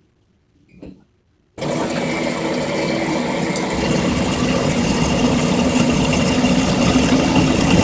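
TIG welding arc buzzing steadily, starting abruptly about a second and a half in and growing a little louder.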